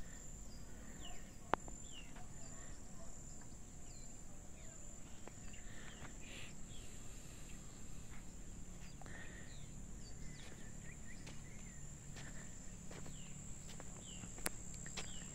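Wild birds chirping and calling in short, scattered notes over a steady, high-pitched insect drone. A single sharp click about a second and a half in.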